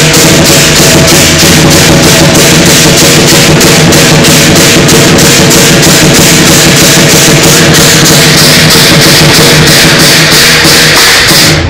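Lion dance percussion ensemble playing a steady, fast beat on a drum with crashing cymbals and ringing gongs, very loud.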